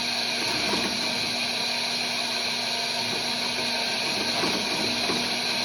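1951 Landis 16 needle-and-awl harness stitcher running under power and sewing, a steady machine hum.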